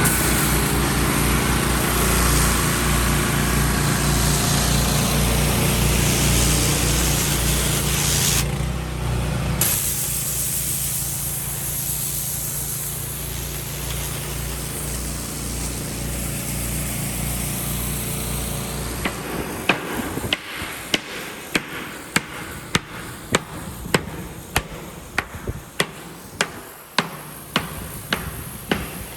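A steady machine hum with a rough, grinding hiss over it. About two-thirds of the way in it gives way to a regular run of sharp metal-sounding blows, roughly three every two seconds, like hammering or chipping on the hull.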